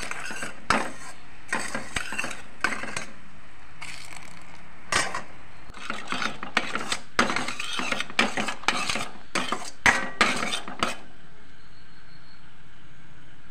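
Steel ladle scraping and clinking against a stainless steel pan while stirring thick, bubbling jaggery syrup as it cooks down. The clinks come in irregular bursts and stop about two seconds before the end.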